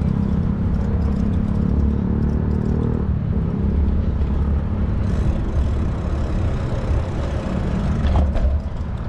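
Wind noise on the microphone of a moving bicycle, with road traffic running nearby. A steady engine hum sounds for the first three seconds, then fades.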